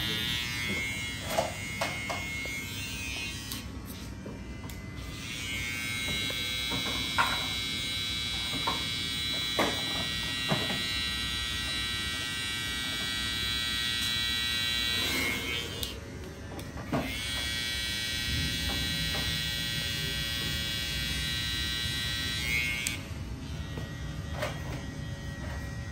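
Electric hair clippers running with a steady high-pitched buzz, switching off twice for a second or two and starting again, with a few short sharp clicks along the way.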